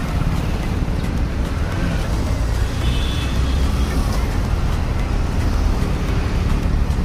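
Steady rumble of busy road traffic, with a brief high-pitched tone about three seconds in.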